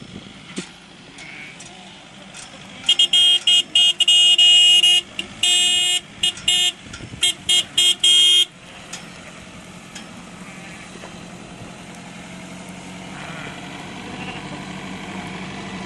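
Vehicle horn sounded in a string of loud blasts, some long and some short toots, for about five and a half seconds starting about three seconds in, over a vehicle engine running steadily.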